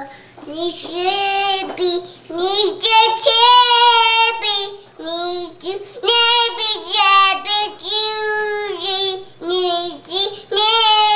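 A two-year-old girl singing a made-up song, holding and sliding long notes in short phrases with brief breaks between them.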